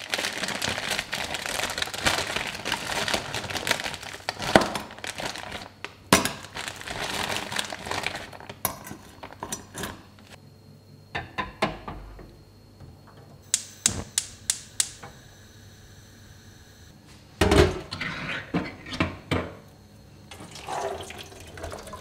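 A plastic bag of frozen spinach crinkling and tearing as it is opened and emptied into a stainless steel saucepan. Then a quick run of sharp clicks, a loud knock and the clatter of pans and kitchenware.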